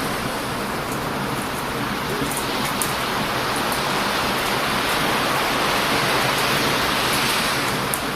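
Heavy ocean surf rushing onto a beach, swelling to a louder wash in the second half and easing near the end, with light crackling pops from a wood bonfire.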